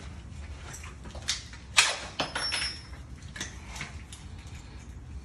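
Door and mortise lock hardware being handled: scattered light clicks, then a sharp knock about two seconds in, followed by a brief scrape with a faint metallic ring.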